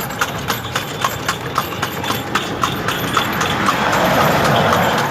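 Hooves of the horse pulling a kalesa (horse-drawn carriage) clip-clopping on the road in a steady, even rhythm of about three to four strikes a second. A rush of noise swells under the hoofbeats over the last second or so.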